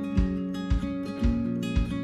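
Background music: guitar over a steady beat of about two low thumps a second.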